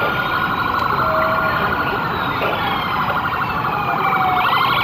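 Several emergency-vehicle sirens sounding at once, overlapping slow rising and falling wails with a fast warbling tone running through them.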